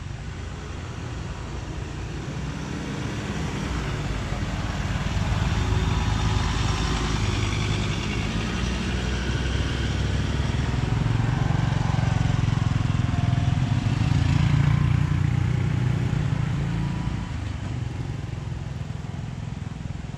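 Motor vehicle engine running nearby, a low rumble that grows louder and then fades away, with faint voices in the background.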